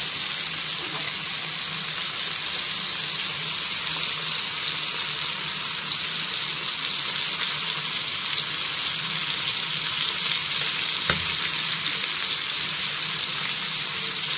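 Sardines and sliced onion sizzling steadily in hot oil on a dosa griddle.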